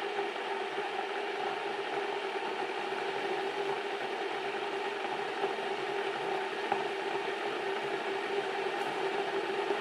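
Electric kettle heating water, a steady rushing hum with a faint crackle of forming bubbles.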